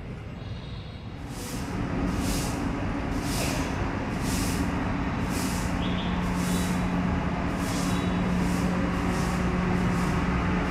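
A motor vehicle's engine running, starting up louder about a second in, with a steady hum and a regular hiss about once a second.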